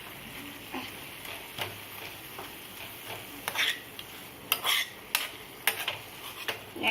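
Mint leaves frying in oil in a pan, with a steady faint sizzle, while a spoon stirs them, scraping and clinking against the pan several times, more often in the second half.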